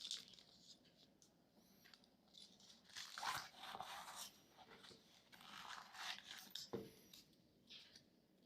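Quiet scratchy rustling and tearing of packaging being handled, in two longer stretches, with a short soft knock just before the end.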